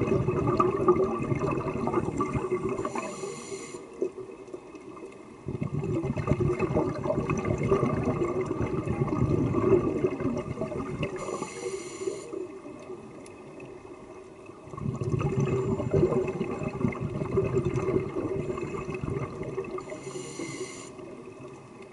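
Scuba diver breathing through a regulator underwater, about three breaths: each a short hiss of air drawn through the regulator and a long rush of exhaled bubbles.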